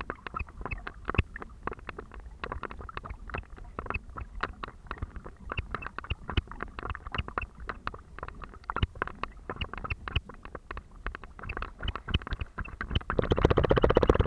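Water sloshing and splashing around a swimming terrier, heard from a camera riding on its back, with many small irregular clicks and knocks. Near the end the splashing grows louder as the dog reaches the bank and scrambles out.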